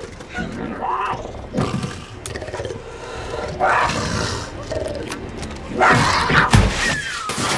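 Cougar snarling and roaring in several loud separate bursts, the loudest about six seconds in.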